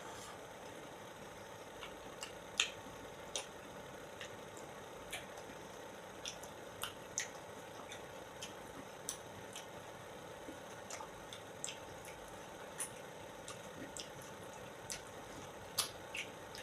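A person eating juicy ripe fruit: irregular wet mouth clicks, smacks and squishes, about one or two a second, over a steady low hum.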